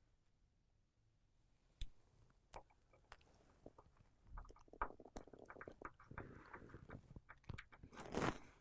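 Faint clicks and scrapes of a small precision screwdriver and tiny screws being fitted into an iPhone's metal frame. A couple of seconds of quiet come first, then scattered ticks, with a slightly louder scrape near the end.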